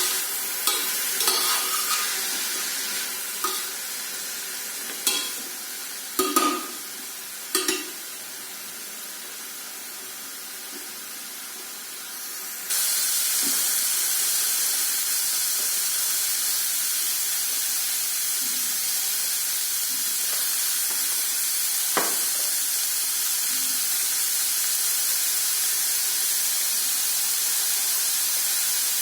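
Food frying in hot oil in a pan, sizzling steadily, with several spatula knocks and scrapes against the pan in the first eight seconds as the sizzle slowly dies down. About 13 seconds in, a louder, steady sizzle starts abruptly, with a single knock later on.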